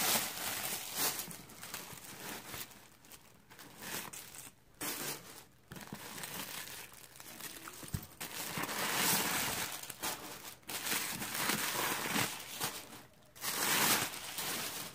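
Tissue paper stuffing being pulled out of a new leather handbag, crumpling and rustling in irregular bursts with short pauses between.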